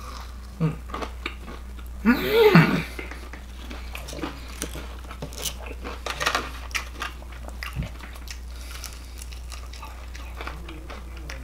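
A person chewing and biting into fried shrimp, with scattered small crunches and mouth clicks. A short voiced hum, the loudest sound, comes about two seconds in.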